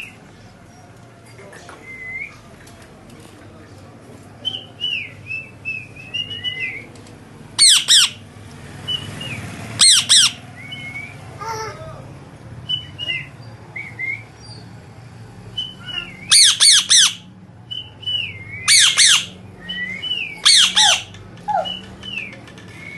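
A parrot giving short whistled glides, broken several times by loud, harsh squawks that come in ones, twos and threes.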